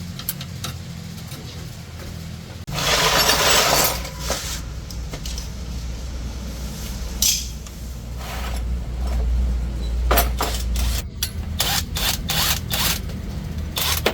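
Metal tools clinking and clattering over a steady low rumble, with a loud hiss lasting about a second near the three-second mark and a quick run of sharp knocks near the end.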